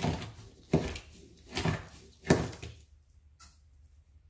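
A blade scraping and gouging into the hard-packed burst section of a canister salute shell, four short strokes about two-thirds of a second apart, then it stops.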